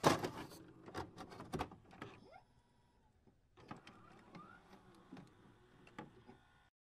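Glitch-style intro sound effects: a sharp burst at the start, then scattered clicks and short rising swishes, with a brief silent gap in the middle, cutting off just before the end.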